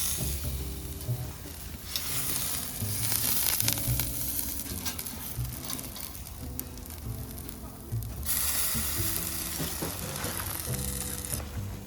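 Meat sizzling and spitting on a charcoal grill. The hiss jumps in level at about 2 s and again at about 8 s, as the clips change.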